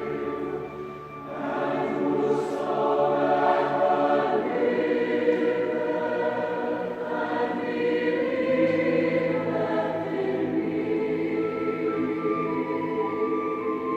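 A choir singing in several parts, holding sustained chords, with a brief dip about a second in before the voices swell again.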